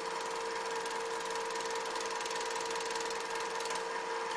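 Super 8 film projector running: a steady, rapid mechanical clatter from the film-advance mechanism over a steady whine.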